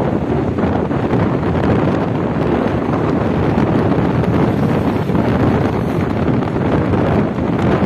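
Wind buffeting the microphone while riding along a highway at speed: a loud, steady rush of noise.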